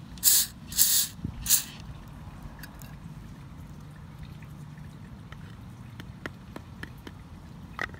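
Three short hisses of an aerosol can spraying cutting and tapping fluid onto a thread tap, in the first second and a half, followed by a few faint clicks of the tool being handled.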